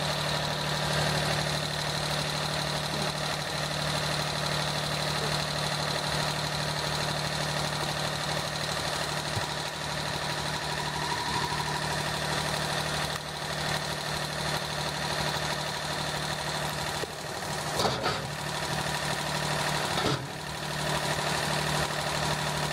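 Compact front-loader tractor's engine idling steadily, with two brief knocks near the end.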